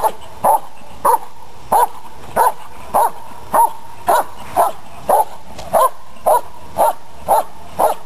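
Dog barking steadily at the helper at the blind, about two sharp barks a second in an even rhythm: the continuous barking of the Schutzhund hold-and-bark, guarding the helper without biting.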